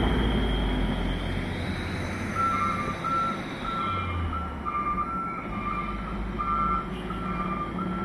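A truck's reversing alarm beeping a repeating two-note pattern, starting a little over two seconds in, over the low running of the truck's engine. A car drives past at the start.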